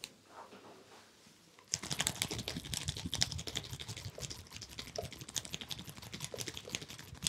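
Fingers rubbing and scratching through hair and over the ear during a head massage: a dense run of crackling scratches that starts about two seconds in.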